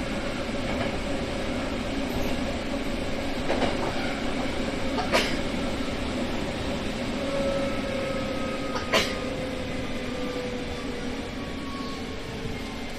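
Hankyu electric commuter train running, heard from inside the driver's cab: a steady rumble of wheels on rail, with a faint whine slowly falling in pitch from about seven seconds in as the train slows. Two sharp clicks come about five and nine seconds in.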